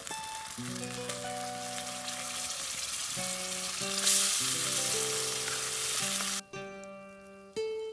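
Food sizzling and frying in a pan, growing louder about four seconds in, then cutting off suddenly, leaving only background music with a melody of sustained notes.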